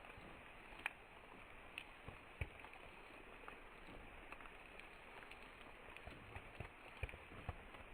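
Rain falling steadily, a faint even hiss with scattered sharp drop ticks.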